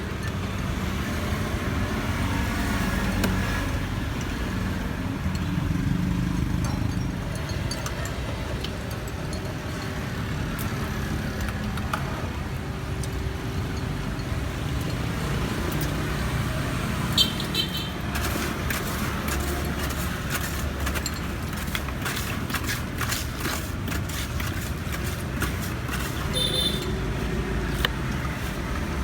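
Busy street traffic, with motor vehicle engines running past in a steady rumble and a couple of short high beeps in the second half.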